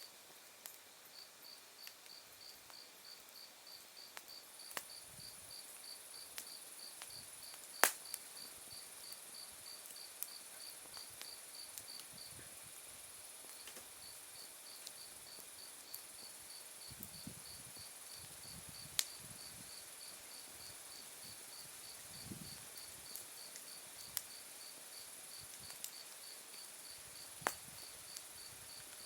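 Insects chirping on an autumn night: one calls in an even pulse of high chirps about four a second, pausing briefly near the middle, over a steady very high trill. A wood fire crackles with occasional sharp pops, the loudest about eight seconds in.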